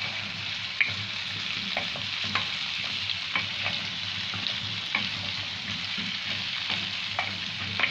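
Small hollowed-out potatoes sizzling in ghee, butter and garlic in a nonstick frying pan while being stirred with a wooden spoon: a steady frying hiss with light knocks of spoon and potatoes against the pan about once a second.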